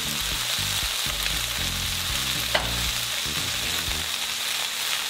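Spaghetti, chicken and scallions sizzling in a hot steel wok as they are stirred and tossed, with one sharp metallic clink about halfway through.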